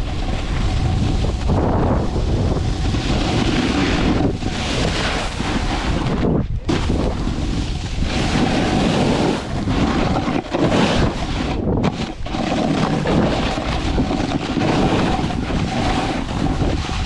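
Wind rushing over the camera's microphone while snowboarding downhill, mixed with the board sliding and scraping over soft spring snow. The noise surges and eases unevenly, with a couple of brief lulls.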